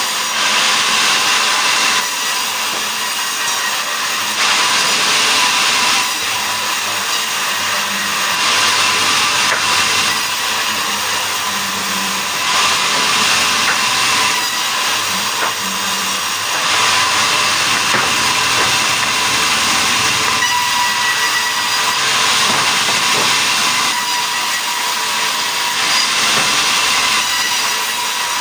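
Sawmill saw cutting a mahogany log into boards: a loud, steady high-pitched noise that swells and eases every few seconds.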